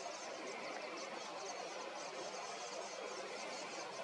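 Quiet outdoor bush ambience: a steady hiss with a fast, high-pitched ticking running through it, and no calls from the lions.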